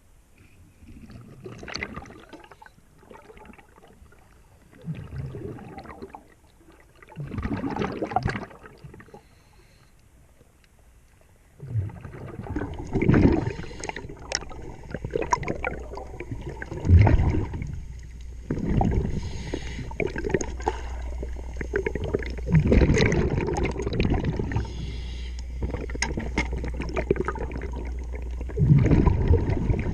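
Diver's breathing regulator underwater, exhaled bubbles gurgling out in bursts every few seconds. A steady low hum joins about twelve seconds in.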